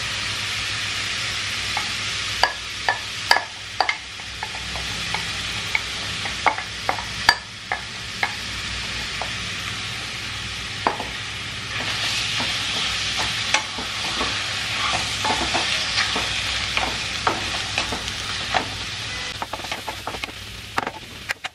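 Marinated chicken pieces sizzling steadily in a hot, oil-free non-stick wok. Sharp clicks and knocks of utensils against the pan come in the first few seconds, and a wooden spatula stirs and scrapes the chicken near the end.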